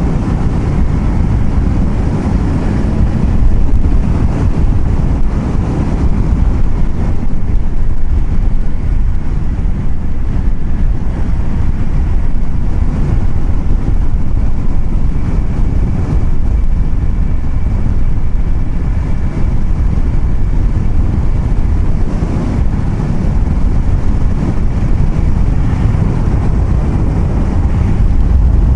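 Steady low rumble of a moving vehicle's road and wind noise, with wind buffeting the microphone.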